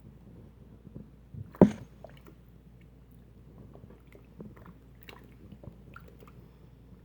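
A single loud wet squelch about one and a half seconds in, as a cloth stuffed into a clogged sink drain is yanked out to plunge it by suction, among small wet clicks and knocks.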